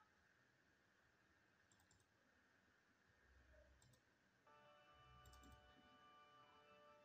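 Faint computer mouse double-clicks, three times a couple of seconds apart, over near silence. About halfway through, a faint steady held chord of background music comes in.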